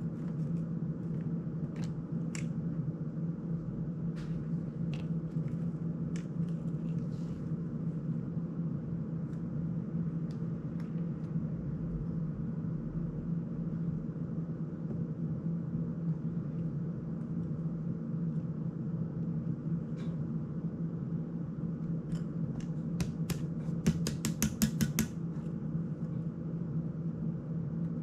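Scattered small clicks and ticks of a GEPRC CineLog 35 FPV drone's frame and parts being handled during disassembly, with a quick run of about a dozen clicks late on, over a steady low hum.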